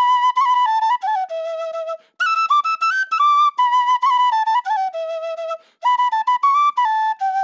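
A solo flute playing a devotional melody in short phrases, with the phrase breaking off briefly twice.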